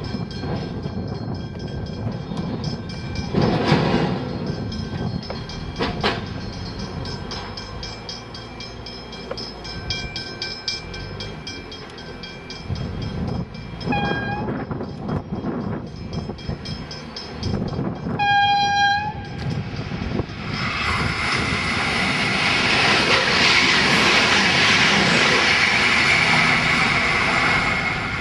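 V/Line VLocity diesel multiple unit approaching at speed. It gives a short horn toot, then a longer horn blast a few seconds later. From about two-thirds of the way in its engine and wheel noise swells into a loud, steady rush as it comes through the station.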